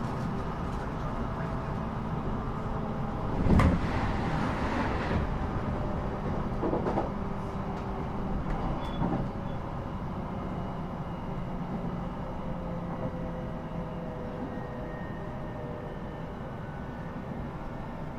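Inside an electric commuter train running between stations: a steady rumble of wheels on the rails with a faint motor hum. A single louder clunk about three and a half seconds in, with smaller knocks a few seconds later.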